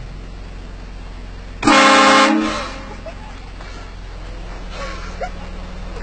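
Car-mounted train horn sounding one short, very loud blast about two seconds in, several tones together.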